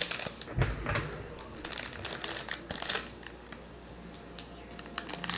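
Crinkling and irregular sharp clicks as a small bag of trading discs is opened and the plastic discs are handled.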